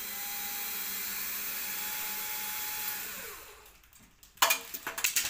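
Electric drill running steadily for about three seconds as it backs out a screw from a wall-mounted toilet-roll holder, then winding down with a falling pitch. A few sharp clicks and knocks follow near the end.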